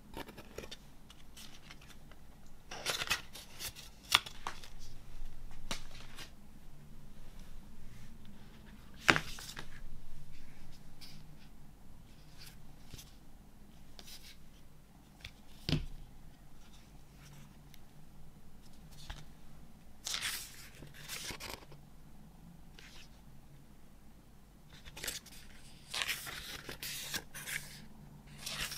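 Hands handling the contents of a music box set: a DVD, a stiff black card sleeve and the pages of a hardback photo booklet. Several short rustles, slides and scrapes of card and paper, with a few sharp taps.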